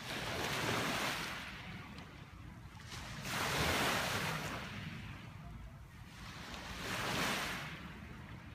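Small lake waves breaking and washing up a gravel shore, three swelling and fading washes, one about every three and a half seconds.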